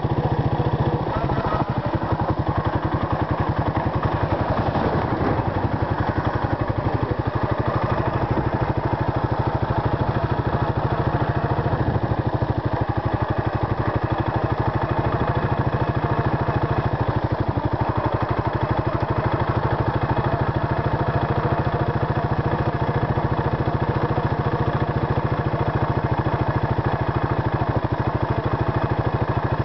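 Suzuki Savage LS650's single-cylinder four-stroke engine running steadily as the motorcycle cruises along, a fast even thumping pulse.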